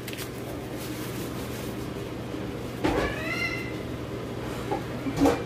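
A cat meows once about three seconds in, a single call that bends upward and is held for about half a second. A sharp knock comes near the end and is the loudest sound.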